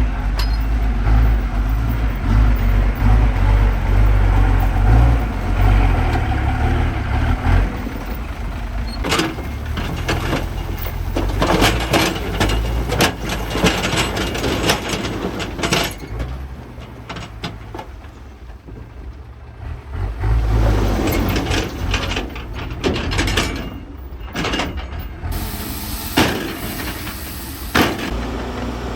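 Heavy construction machinery at work: diesel engines running with a deep rumble, strongest in the first several seconds, and many sharp clanks and knocks that come in clusters through the rest.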